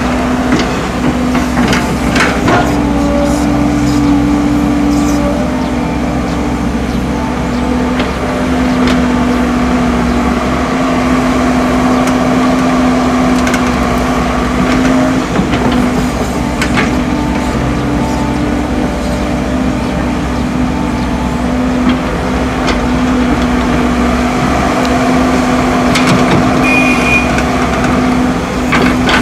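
Heavy diesel engines of a hydraulic excavator and a dump truck running steadily at work, a continuous engine hum with a few short knocks.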